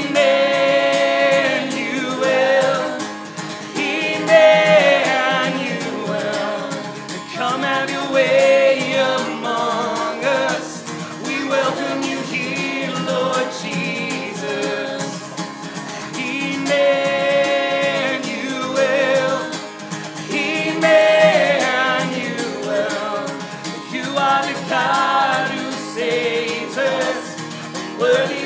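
A worship song sung with acoustic guitar accompaniment: voices holding long sung lines over steady strummed guitar.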